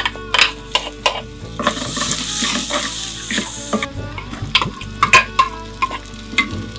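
Chopped ginger and garlic sizzling in hot oil in a clay pot. The hiss swells about a second and a half in and falls away after about two seconds, while a ladle taps and scrapes against the pot as it stirs.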